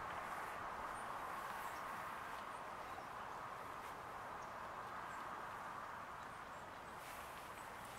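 Faint, steady outdoor background noise, an even hiss-like hum with a few faint light ticks scattered through it.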